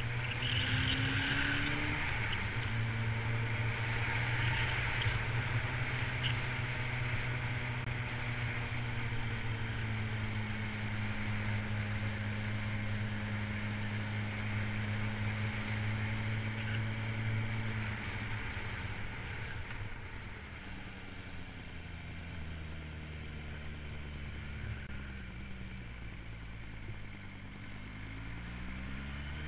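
A vehicle's engine running steadily at a constant pitch, then settling to a lower note about two-thirds of the way through and rising again near the end.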